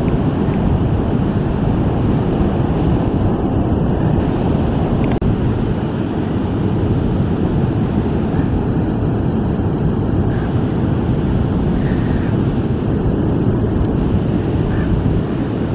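Wind buffeting the microphone over the steady wash of ocean surf, with a brief click about five seconds in.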